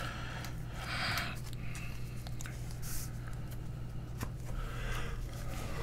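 Soft rustles and small clicks of trading cards and pack wrappers being handled, over a steady low electrical hum.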